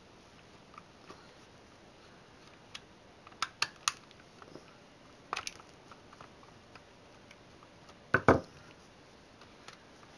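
Scattered clicks and clacks of a small plastic Radio Shack RF modulator case and hand tools being handled as the unit is unscrewed and pried apart, with one louder clunk about eight seconds in.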